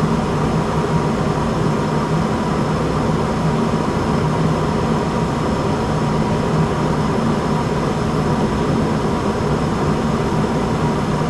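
Ruud RGRC 95% condensing gas furnace running at steady state, burners lit with the inducer and blower going: a steady mechanical hum with faint steady tones above it.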